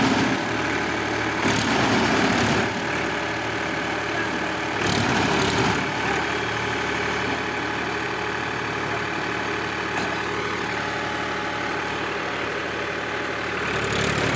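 Powertrac Euro 41 tractor's diesel engine running steadily under load while it works a reaper cutting paddy, with a couple of brief louder swells in the first six seconds.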